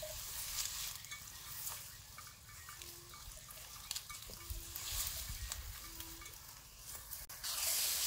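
Cattle grazing in tall dry grass: a light, crackly rustle of stems being brushed and torn, with a few faint short low notes in the middle.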